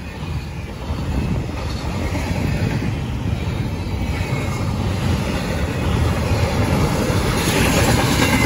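Intermodal freight train cars rolling past, carrying trailers and double-stacked containers: a steady rumble of steel wheels on rail that grows louder toward the end.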